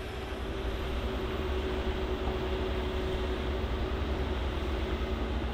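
Heavy diesel construction machinery, a tracked excavator among it, running steadily: an even engine drone with a constant hum through it.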